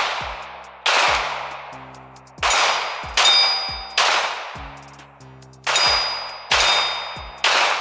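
Sig Sauer 9mm pistol fired six times at an unhurried pace, roughly a second between shots, each report trailing off in a long echo. Twice a steel target rings with a high metallic ping after a hit.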